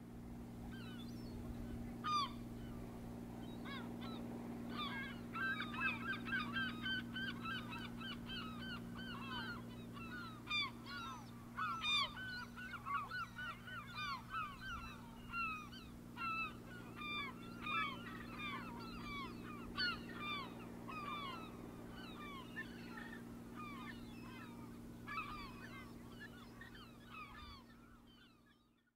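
A flock of birds calling, many short, overlapping honking calls. The calls are thickest a few seconds in and thin out toward the end, over a steady low hum.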